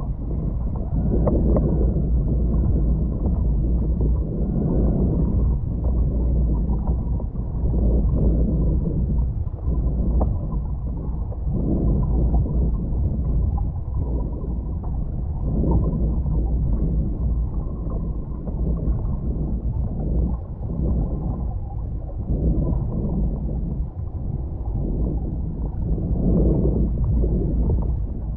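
Muffled rushing and rumbling of water flowing past a GoPro in its waterproof housing while it is towed underwater, swelling and fading every second or two.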